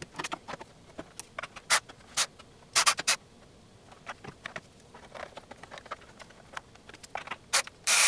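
3D-printed PLA plastic parts being handled and fitted together by hand: scattered light clicks and taps, a few louder ones in the first three seconds.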